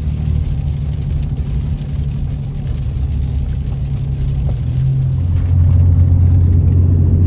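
Pickup truck driving, heard from inside the cab: a steady low engine and road drone that gets louder about five seconds in.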